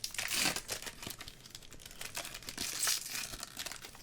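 Foil Pokémon booster pack wrapper crinkling as the cards are handled and pulled out, in brisk crackling strokes loudest just after the start and again about three seconds in.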